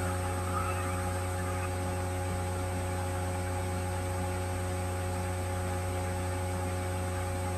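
Steady electrical hum: a low drone with faint higher tones and a thin high whine above it.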